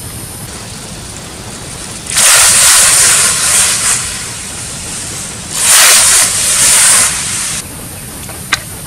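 Sliced bamboo shoots tipped into a steel wok of water over a wood fire, with water splashing and sloshing in two loud bursts of about two seconds each, over a steady background hiss. A single short click comes near the end.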